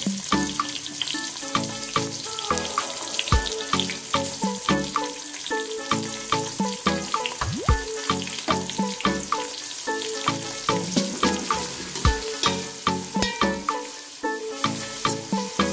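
Food frying in hot oil with a steady sizzle, under instrumental background music with a regular beat and a deep thump every few seconds.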